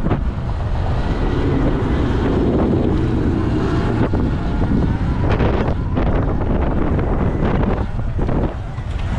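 Wind rushing and buffeting over the action camera's microphone while riding a Sur-Ron X electric dirt bike; the electric motor makes little sound beneath it.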